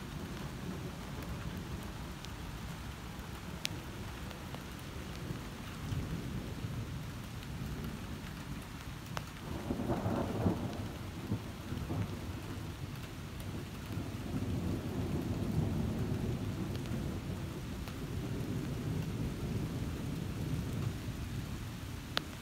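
Thunderstorm: thunder rumbling low and continuously under steady rain, with the loudest peal about ten seconds in and more rolls of thunder later on, plus a few sharp ticks of drops.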